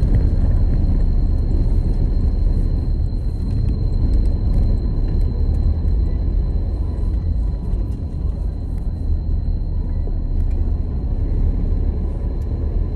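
Steady low rumble, with a thin steady high tone running over it.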